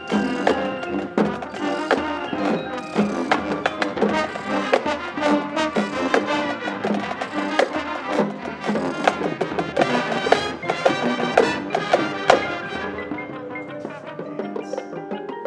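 High school marching band playing its competition show: brass chords over percussion hits. The hits thin out about 13 seconds in, leaving sustained brass.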